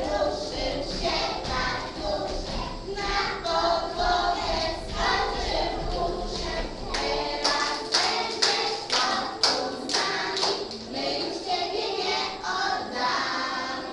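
A group of young children singing a song together, joined in the middle by a run of rhythmic hand claps, about two a second.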